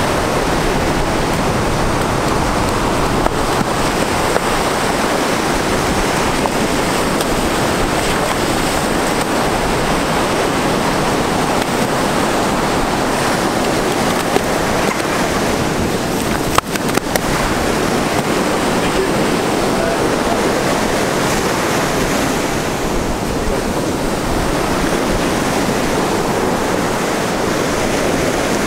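Ocean surf washing on the beach, a steady rush, with wind buffeting the microphone. One sharp click a little past halfway.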